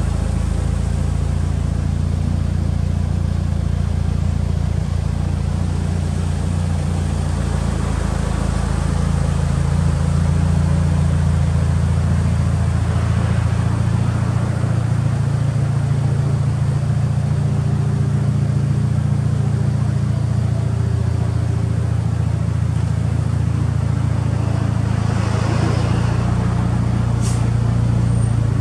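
Lancer Evolution VIII MR's G-Force complete engine, a turbocharged 4G63 inline-four, idling steadily. The idle note grows a little fuller toward the rear of the car, by the exhaust. There is a single sharp click near the end.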